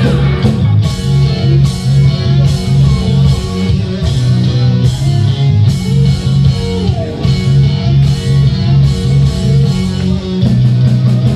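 Live band playing an instrumental passage: electric guitar over a pulsing, evenly repeating bass line and drums.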